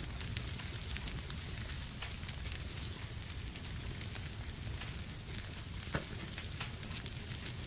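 Fireplace fire burning with a steady hiss and frequent sharp crackles and pops, one louder pop about six seconds in.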